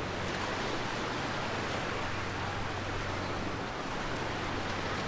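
Steady beach ambience: a continuous hiss of gentle surf and open air, with a faint steady low hum underneath.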